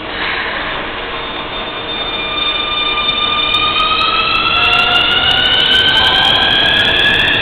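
Keikyu electric train's traction motors whining as it accelerates: several tones climb slowly and steadily in pitch together from about two seconds in, getting louder. Sharp wheel-on-rail clicks join in about halfway through.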